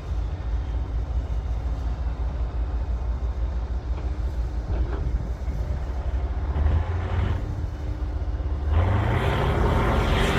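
Cat D9L bulldozer's diesel engine running with a steady low drone; near the end it revs up, rising in pitch and getting louder as it takes on power.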